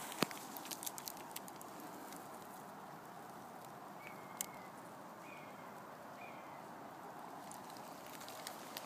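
Faint outdoor hush with a cluster of small sharp clicks and snaps in the first second and a half as the camera is handled close to the stump, then three or four short high chirps a second or so apart, with one more click among them.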